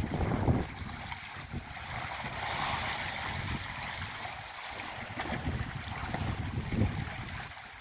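Sea waves washing against rocks with wind gusting on the microphone, coming in irregular low surges over a steady rush of water.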